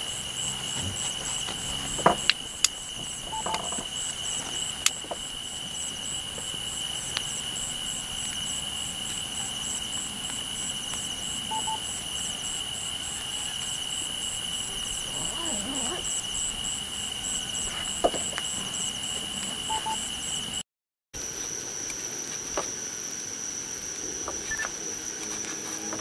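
Night insects calling: a steady high-pitched trill with a fast pulsing chirp above it, joined by a few sharp snaps of dry brush and twigs being handled. Near the end the sound drops out briefly and the insect calls come back at a different pitch.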